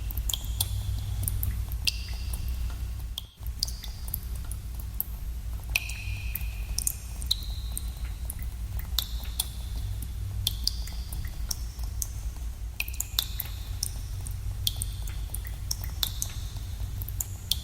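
Water dripping in a cave: drops land at irregular intervals, one to a few a second, each a sharp plink with a short ringing tone, over a steady low rumble. The sound cuts out for a moment about three seconds in.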